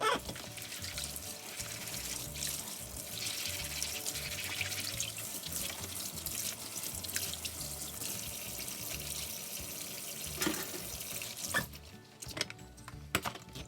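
Kitchen tap running water into a sink as a steady hiss, shutting off about three-quarters of the way through, followed by a few light clinks.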